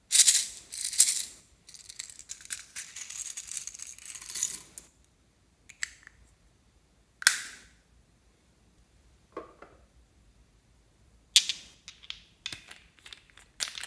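Hard plastic cosmetic containers and nail polish bottles being handled and opened: a clatter of clicks at the start, a rattling stretch a couple of seconds in, then single sharp clicks and taps spaced a second or more apart.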